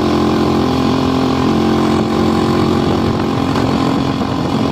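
Motorcycle engine running steadily while riding, its pitch shifting slightly now and then.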